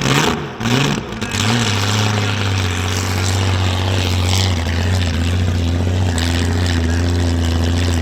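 Supercharged six-cylinder Commodore burnout car restarting: the engine blips up and down in short revs, then settles into a steady low idle about a second and a half in.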